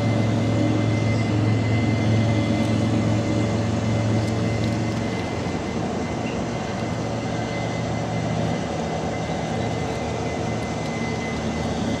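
Steady mechanical background hum with a deep drone that eases off about five seconds in, over a faint steady high whine.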